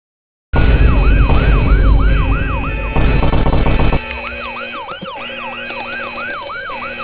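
A siren wailing, its pitch sweeping up and down about three times a second, over steady tones and a heavy low rumble. It starts suddenly half a second in, and the rumble drops away about four seconds in.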